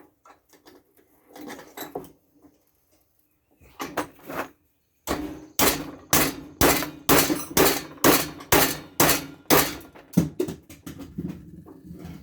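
A plastic fan-motor housing held in a vise being broken apart: a series of sharp knocks and cracks, a few at first, then a fast run of about two a second through the middle, tailing off near the end.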